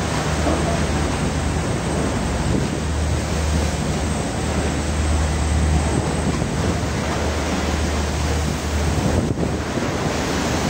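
Seawater washing and sloshing across the deck of a fishing boat, a steady rushing noise, with a low steady hum underneath.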